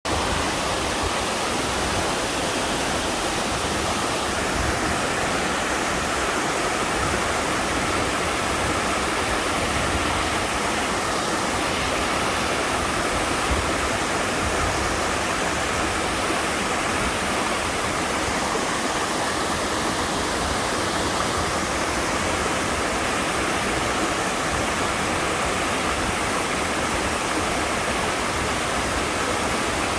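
Waterfall cascading into a mountain valley stream: a steady, unbroken rush of falling water.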